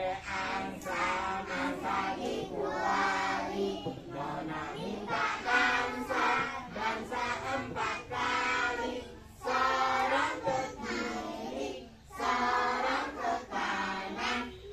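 A group of young children singing a song together in unison, in short phrases with brief breaths between them.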